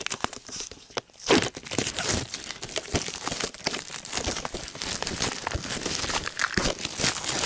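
Handling noise: rustling and crinkling with many irregular clicks and a louder knock about a second in.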